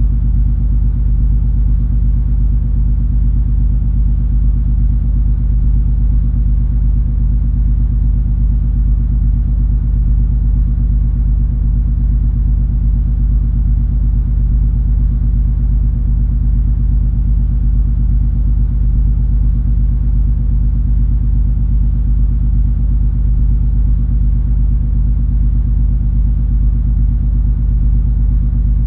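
Steady low rumble of the cruise ferry MS Color Fantasy under way, its engines and machinery droning with several steady low tones.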